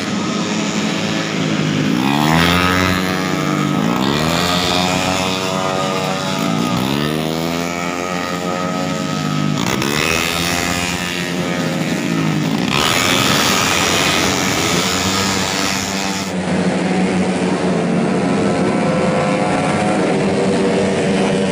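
Tuned 131cc automatic racing scooters, several engines accelerating one after another, each rising sharply in pitch, about every two seconds. Later the engines blend into a denser, steadier sound.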